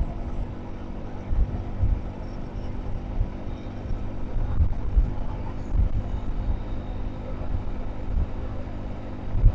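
A motor vehicle running: a steady low engine drone with an irregular low rumble and thumps underneath.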